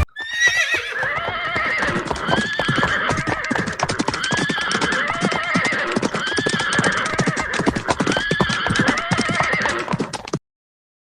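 A herd of horses galloping: a dense clatter of hoofbeats with repeated neighs about every second. It cuts off suddenly near the end.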